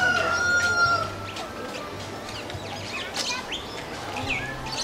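A rooster's crow ending about a second in, then small birds chirping in short, quick notes.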